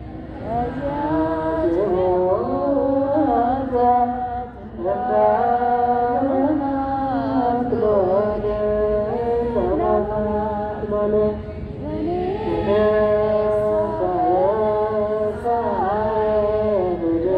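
Voices singing an Ethiopian Orthodox hymn (mezmur) together, a slow chant-like melody sung in phrases with short breaks between them.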